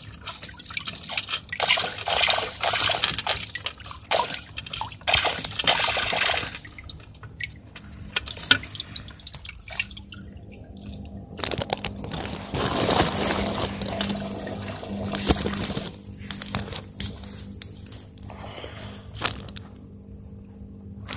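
Aquarium water splashing and dripping in irregular bursts, with scattered sharp clicks.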